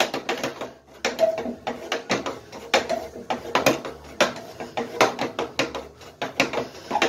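Shift lever of a 1999 Scotts lawn tractor being worked back and forth through its forward–neutral–reverse gate with the engine off, clacking and clicking several times a second, with a few short squeaks.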